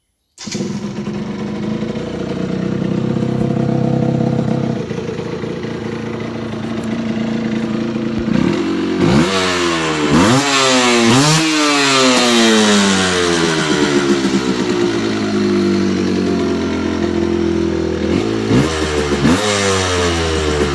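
Yamaha TDR 125's two-stroke single-cylinder engine running at a steady idle, then revved in quick blips with the revs falling away slowly after each: three blips close together about nine seconds in, and two more near the end.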